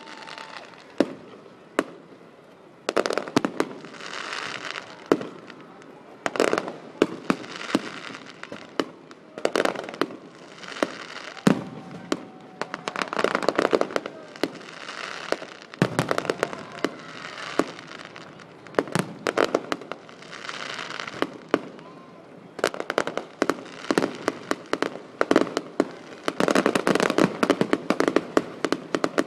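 Fireworks display: a rapid, continuous series of sharp bangs from bursting shells, with crackling fizz between them that swells and fades every few seconds.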